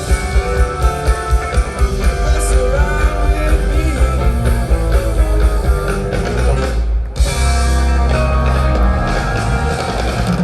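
Rock band playing live, with electric guitar, bass and drums over a steady beat. About seven seconds in the music stops for an instant and comes back as a long, held chord.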